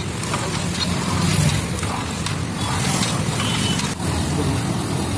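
Steady roadside traffic noise, with light scraping and clinks of a steel ladle stirring chole on a large iron tawa.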